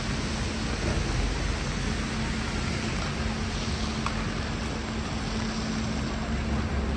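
Steady hiss of rain and traffic on a wet city street, with a constant low hum underneath.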